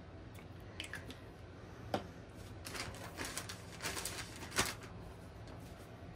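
Small pump-spray bottle of shimmer ink misted in a few short hissing bursts about halfway through, amid clicks of the pump and light knocks of bottles on the tabletop, the sharpest knock coming near the end.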